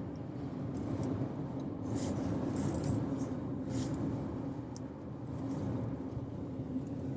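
Steady drone of a moving car heard from inside the cabin, engine and road noise with a constant low hum, and a few faint rustles.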